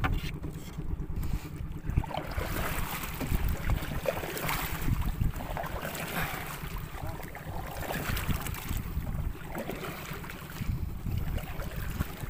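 Wind buffeting the microphone as a low, uneven rumble, with sea water washing and splashing against the hull of a small outrigger boat.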